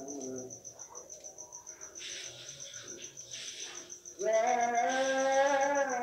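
A man's voice chanting the pre-dawn tarhim praises. He breaks off at the start and comes back about four seconds in with a loud, long held, slightly wavering note. A cricket chirps throughout in a fast, even pulse.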